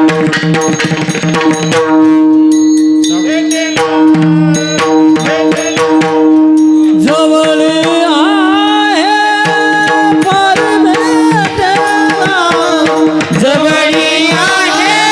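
Devotional singing with tabla over a steady held drone. The first few seconds are instrumental with tabla strokes, then a male voice comes in about seven seconds in, holding long ornamented notes that bend in pitch.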